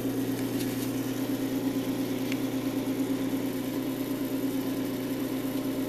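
Delta 46-700 wood lathe running steadily at one of its lower speed settings, about 800 RPM: an even motor-and-belt hum with a fast flutter.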